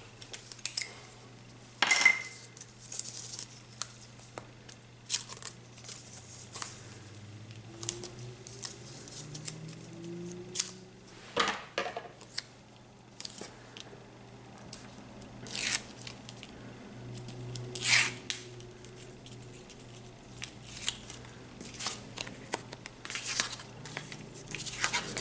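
Card stock and adhesive tape being handled while gluing card layers together: scattered paper rustles, taps and several sharp clicks, with tape tearing. A faint low steady hum runs underneath.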